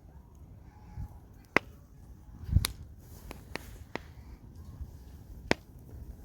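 A handful of sharp, isolated clicks or pops at irregular intervals, with a dull low thump about two and a half seconds in.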